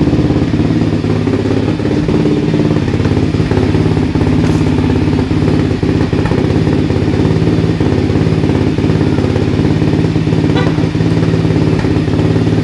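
Engine of a yellow 400 sport quad (ATV) idling steadily.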